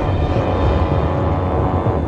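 Steady low drone of a dark film score, a rumble under sustained held tones.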